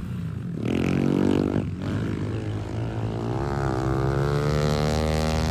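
Dirt bike engine revving hard under throttle. Its pitch rises, breaks off briefly about two seconds in, then climbs again and holds high.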